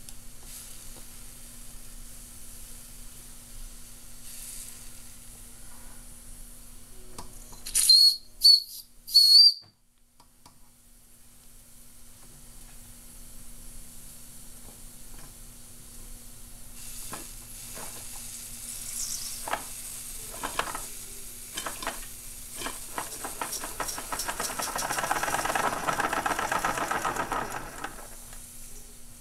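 Bing toy live steam plant: the boiler's steam whistle blown three short times, then steam hissing as the valve is opened and the small engine starts, its irregular exhaust puffs building into fast chuffing near the end.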